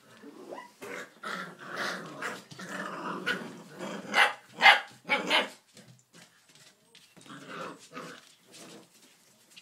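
Six-week-old puppies growling and barking as they play. Three loud, sharp barks come about four to five seconds in, followed by quieter growls.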